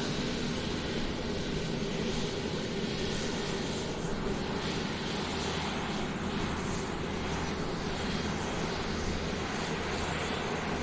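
Airplane taxiing: steady engine noise with a low, even hum under a constant hiss, holding the same level throughout.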